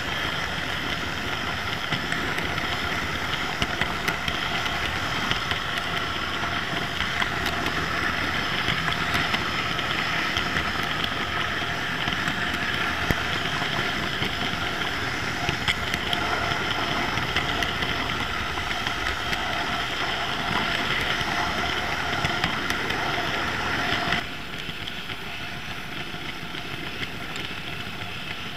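OO gauge model train running on track, with a DCC sound-fitted diesel locomotive's engine sound: a steady mechanical running sound with a hum and light clicks. It drops suddenly quieter near the end.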